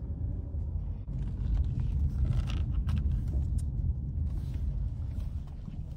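Car engine and road noise heard inside the cabin: a steady low rumble.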